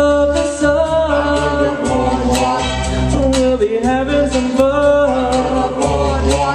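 Male vocal group singing held harmony notes into microphones, with a steady bass line and drum beat underneath.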